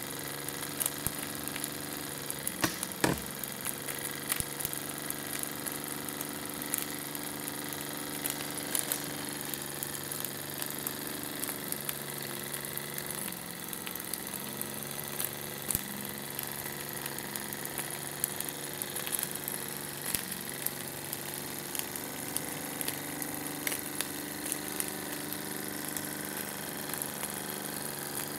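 Miniature brass single-cylinder model steam engine running steadily on steam from a small burner-heated boiler, with a fast mechanical running hum that dips in speed briefly partway through. A single sharp knock comes about three seconds in.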